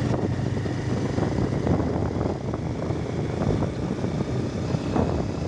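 Motorcycle engine running steadily at road speed, with wind rumbling over the microphone.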